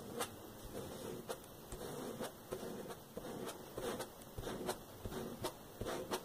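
An old plastic credit card scraping acrylic paint across sock fabric stretched over a photo frame, in short, repeated strokes about two a second.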